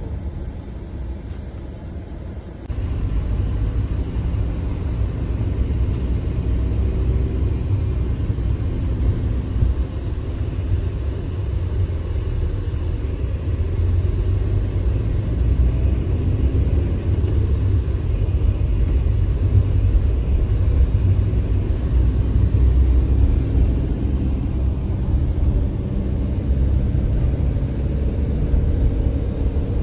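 Steady low rumble of a car being driven, tyre and engine noise with no distinct events; it steps up abruptly in level about three seconds in and then runs on evenly.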